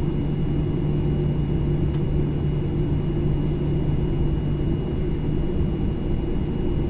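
Jet airliner cabin noise while taxiing on the ground: a steady low rumble and hum from the engines and rolling airframe, with a faint click about two seconds in.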